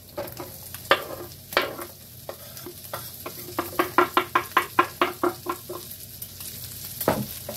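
Chopped onions, shallots and mushrooms being scraped off a wooden cutting board into a pan of hot bacon fat, over a steady frying sizzle. A couple of sharp knocks come first, then a quick run of about a dozen taps, roughly five a second, and one more knock near the end.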